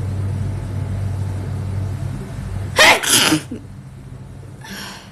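A woman's loud wet sneeze about three seconds in, followed near the end by a fainter breathy rush, over a steady low hum.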